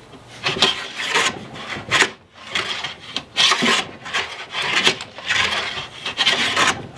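Stanley No. 31 transitional jointer plane pushed along a wooden board in short repeated strokes, the blade rasping and scraping as it takes off small shavings. The iron is in very bad shape, so the plane cuts only a little and raises poor shavings.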